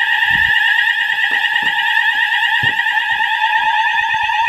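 Fire alarm sounders going off: a loud, continuous electronic alarm tone with a rapid warble. It is the sign that a smoke detector has tripped on aerosol test spray during a system test.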